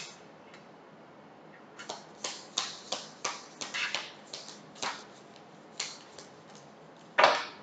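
Tarot cards being shuffled by hand: a run of sharp, irregular card snaps and slaps starting about two seconds in, with a louder burst near the end.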